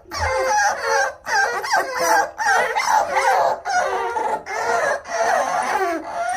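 A litter of five-week-old American Bully puppies whining and howling together, many high cries overlapping with hardly a break: the pups are upset.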